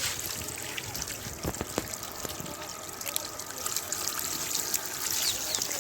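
Water trickling and lightly splashing, with scattered small clicks and splashes.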